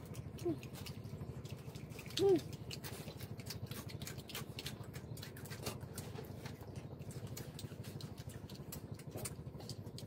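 Many small clicks and crackles from boiled shrimp being peeled by hand and chewed, with lip-smacking. A brief pitched vocal sound about two seconds in is the loudest thing.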